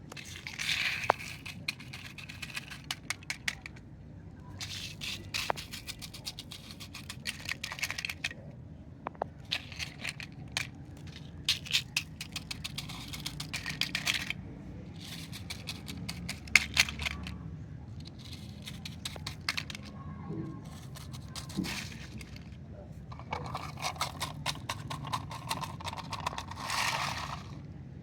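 Toy cars driven over gravel: pebbles crunching and clicking under the wheels in repeated bursts of a second or two, with short pauses between.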